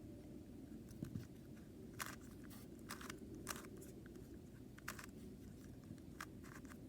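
Layers of a 3x3 Rubik's cube being turned by hand, giving faint, irregular plastic clicks about once a second or so.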